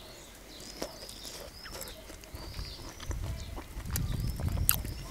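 Chewing a juicy grapefruit segment, with small wet mouth clicks, while small birds chirp again and again in the background. A low rumble comes in after about three seconds.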